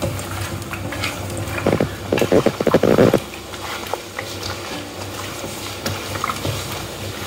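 Hands squishing and mixing raw chicken pieces with oil and spice powders in a metal bowl, working the marinade in. The mixing gets louder for about a second and a half around two seconds in.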